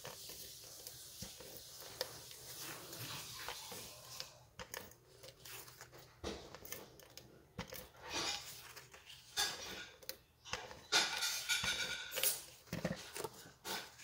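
Cardstock rustling as a panel is handled and flipped, with a tape runner laying adhesive on its back in several short strokes, mostly in the second half.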